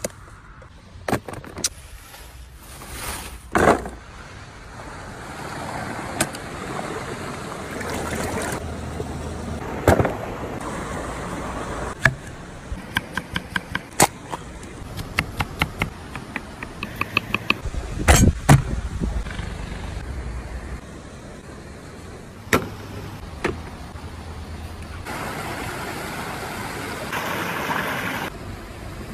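Hands-on handling of fresh vegetables: rustling leaves and sharp snaps and clicks as green peppers are picked off the plants. Then a quick run of clicks, about four a second, as a knife slices a green pepper held in the hand, with low wind rumble.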